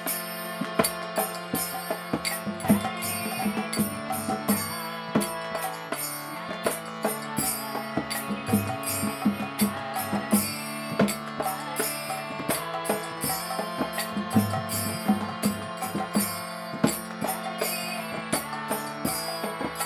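Kirtan: a harmonium playing sustained chords under a woman's chanting voice, with drum and percussion strokes keeping a steady rhythm.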